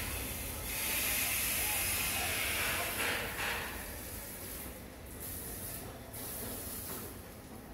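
Garden hose spraying, a steady hiss of the water jet splashing on wet stone paving. It is loudest for the first three seconds or so, then softer, dropping out briefly twice.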